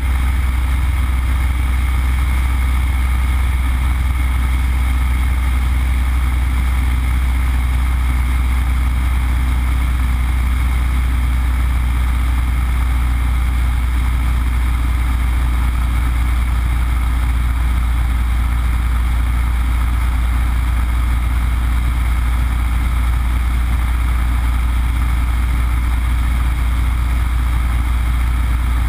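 Yak-52's nine-cylinder radial engine and propeller running in flight, heard from inside the cockpit: a steady, loud, low drone that holds level throughout.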